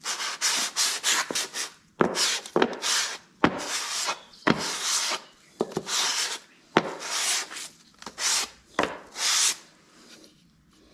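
Aluminium cylinder head of a Briggs & Stratton 8 hp engine rubbed back and forth on 400-grit sandpaper laid flat on glass: repeated rasping strokes, a little under two a second, stopping about a second before the end. The flat sanding is levelling the head's gasket surface by taking down its high spots.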